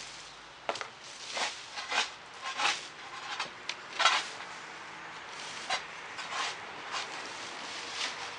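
Plastic leaf rake scraping and rustling dry leaves across grass in a series of strokes, about one a second, the loudest about four seconds in.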